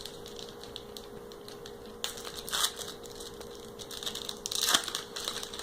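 Foil booster-pack wrapper crinkling and tearing as a trading-card pack is opened, in a few short rustling bursts, the loudest near the end.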